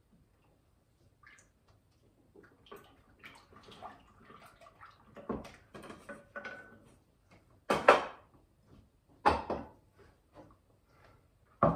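Wet acorn-flour and water batter being stirred with a spoon in a glass mixing bowl: scraping and small clicks against the glass, with a few louder knocks in the second half.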